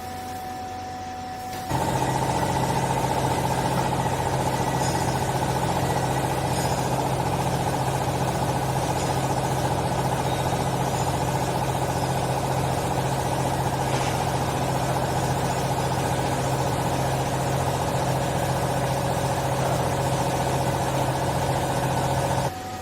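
Hydraulic baler's electric motor and pump running under load, a steady hum with a whine above it, starting abruptly and cutting off suddenly near the end.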